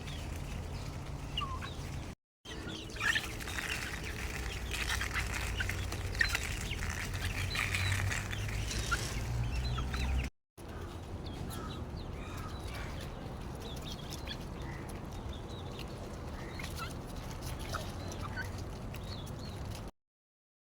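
Chickens clucking and calling at intervals over a low steady background.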